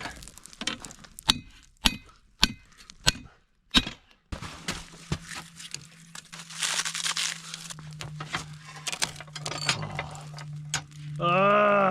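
Hardwood charcoal pieces clinking and snapping as they are broken and handled: sharp glassy clicks, about one every half-second. From about halfway, a steady low hum with a rushing hiss takes over.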